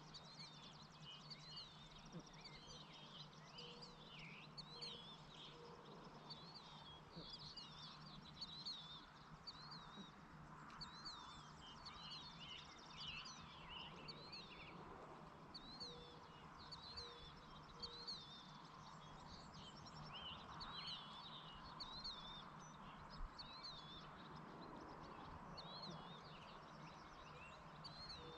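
Faint evening chorus of small songbirds chirping, many short repeated calls overlapping throughout, over a steady low hum.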